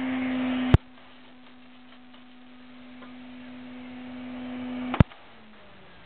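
Vacuum cleaner motor running with a steady hum. A sharp click about a second in leaves it much quieter, and a second click near the end is followed by the hum sinking in pitch.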